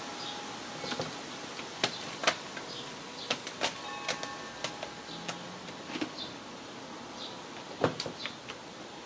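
Irregular sharp clicks and light clinks, a few of them ringing briefly, with faint chirps in the background.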